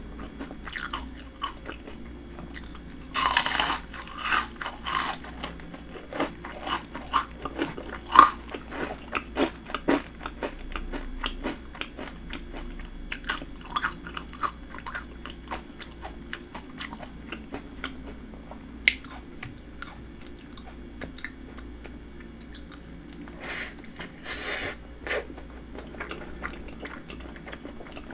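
Biting and chewing of breaded fried shrimp: crisp crunching, with a loud bite about three seconds in and another loud cluster near the end, and softer chewing between.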